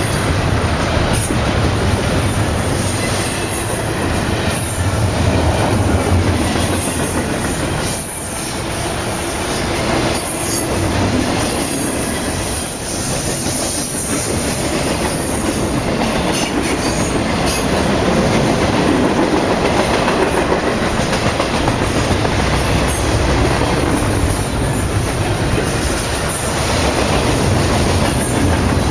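Double-stack intermodal freight train rolling past close by: a steady, loud rumble of steel wheels on the rails and the clatter of the loaded well cars.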